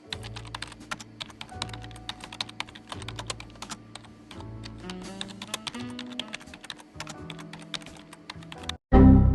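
Rapid, continuous typing on a computer keyboard over quiet background music with slow low notes. Near the end the typing stops and loud music cuts in abruptly.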